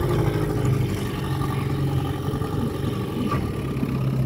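Mercury Merc 110 two-stroke outboard motor running steadily.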